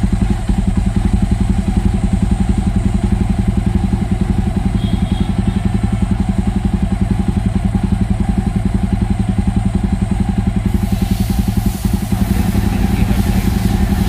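Jawa 42 Bobber's single-cylinder engine idling steadily through its exhaust, a loud, even, rapid pulse. A hiss joins about eleven seconds in.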